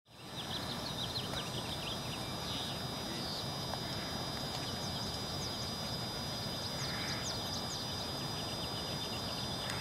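Wind rushing steadily on the microphone outdoors, with small birds chirping in quick, high chirps throughout.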